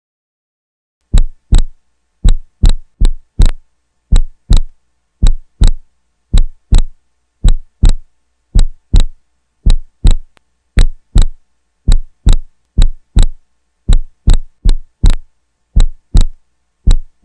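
Heartbeat sound effect: loud paired lub-dub thumps, about one pair a second, starting about a second in.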